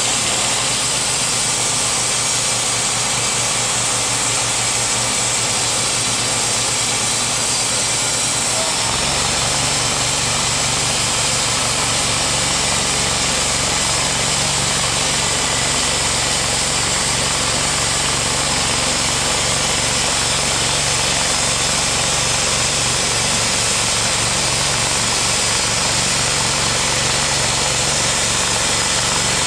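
Timberking B-20 portable bandsaw mill running steadily, its engine driving the band blade through a white oak log. About nine seconds in the sound deepens and stays that way as the blade works through the cut.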